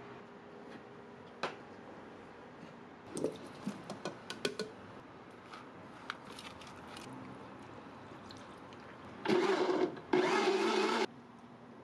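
Countertop blender motor running in two short pulses of about a second each near the end, chopping watermelon and sweet pumpkin chunks. Before that, a quick string of light clicks and knocks.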